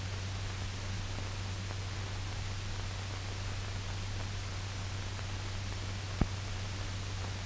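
Steady hiss and low hum of an old film soundtrack, with a single sharp click about six seconds in.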